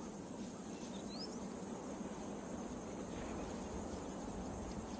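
Steady high insect drone of the bush, from cicadas or crickets, with a couple of short rising bird chirps about a second in.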